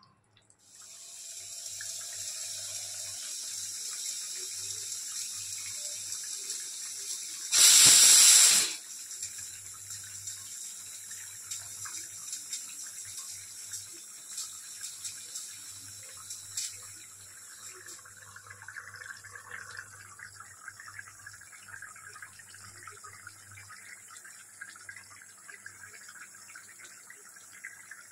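Chicken curry simmering in an iron kadai on the stove: a steady hiss with scattered crackles and bubbling. A loud rush of noise lasting about a second comes near 8 seconds in.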